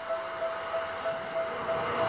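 Japanese level-crossing warning bell ringing in a steady ding-ding about three times a second. Under it, an approaching Seibu electric commuter train's running noise swells near the end.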